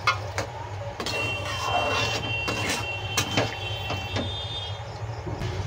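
Metal spatula stirring a watery potato and soya-chunk curry in an aluminium kadhai, scraping and knocking against the pan several times, over a steady low hum. A thin high tone sounds for about three seconds in the middle.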